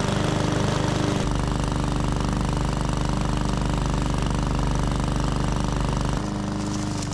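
PowerSmart 144cc OHV single-cylinder push mower engine running steadily while mowing in mulching mode. Its sound shifts about a second in and again near the end.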